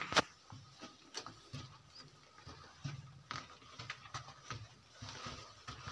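Footsteps scuffing and thudding irregularly on a dusty cave floor, with a sharp click just after the start and a few fainter ones later.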